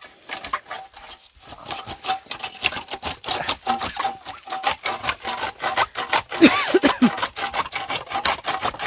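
Hand saw cutting through the wood of an old apple tree, in quick, steady back-and-forth strokes that start about a second and a half in.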